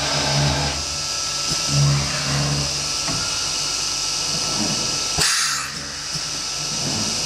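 IMA BIMA 600 CNC machining centre running over a wooden door panel: a steady machine hum and hiss that swells in short stretches. A sharp click and a brief burst of hiss come about five seconds in.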